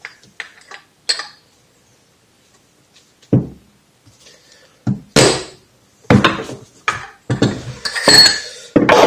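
A pry bar knocking and clinking against a Showa fork leg as the stuck fork seal is levered out. A few light clicks come first, then about eight sharp metallic knocks from a third of the way in.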